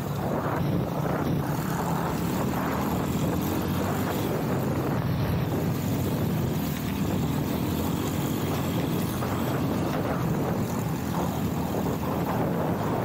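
Honda CRF X enduro motorcycle's single-cylinder four-stroke engine running steadily while riding, with no clear rev changes.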